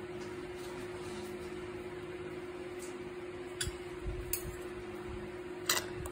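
Steady low electrical hum at a single pitch, with a few short soft clicks in the second half.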